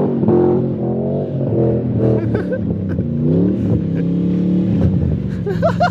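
Ford Mustang GT's V8 engine revving up and down repeatedly, its pitch rising and falling several times, as the rear-wheel-drive car struggles for traction in mud and gets stuck.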